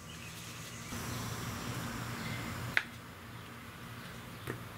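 Shop rag wiping the aluminium fork tube of a motorcycle front fork, a dry rubbing hiss, ending in one sharp click just before three seconds in, with a fainter tick near the end.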